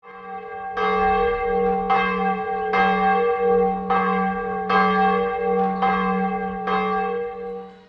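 A bell tolling, struck about eight times at roughly one-second intervals, each strike ringing on into a steady, sustained hum.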